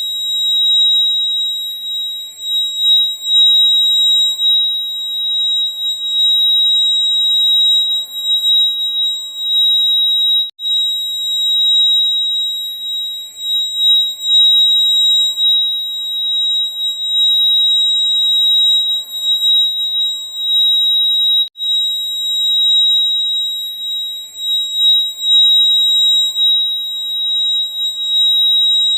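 Electronic fire alarm sounding a continuous shrill high-pitched tone. It breaks off for an instant twice, about ten seconds apart.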